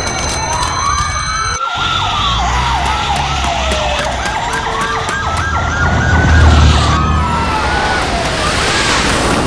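A fire-engine siren wailing, slowly rising and falling in pitch twice, over a low rumble.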